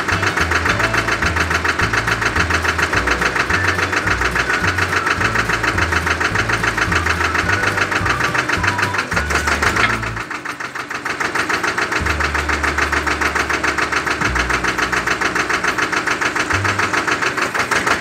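Background music with a fast, steady pulsing beat and a low bass line that steps from note to note; the bass drops out for a moment about ten seconds in.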